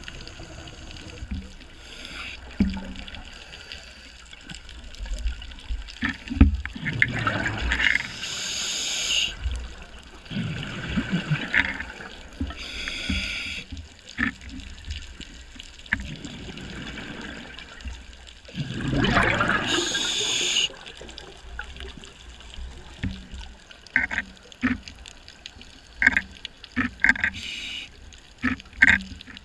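Scuba diver breathing through a regulator underwater: exhaled bubbles rush and gurgle past the camera in three long bursts several seconds apart, with scattered small clicks between breaths.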